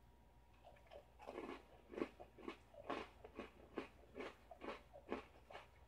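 Faint bite into an Oreo chocolate sandwich cookie about a second in, then rhythmic crunchy chewing at about two chews a second.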